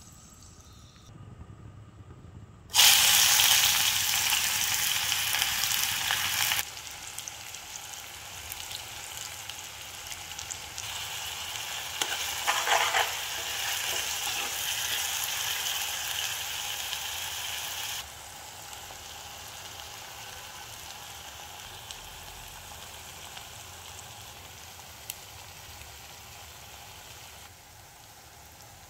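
Chopped food frying in hot oil in a steel wok, a loud sizzle that starts suddenly about three seconds in. It eases, swells again while a spatula stirs the pan, then settles into a quieter sizzle.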